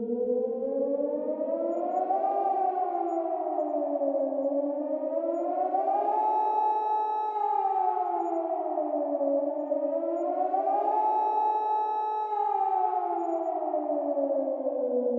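Civil-defence nuclear attack warning siren wailing: a layered, chord-like tone rises, holds at the top and falls in slow cycles of about four to five seconds, heard about three times, over a steady underlying tone.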